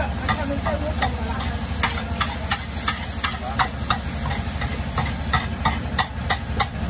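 Metal spatula clinking and scraping on a flat iron tawa as paneer chaat is stirred and chopped. The sharp clinks come irregularly, about two or three a second, over a light sizzle and a low steady hum.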